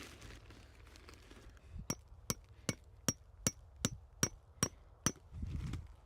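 Hammer driving a metal tent stake: nine sharp strikes in a steady rhythm, about two and a half a second, each with a short metallic ring, then a dull thud near the end.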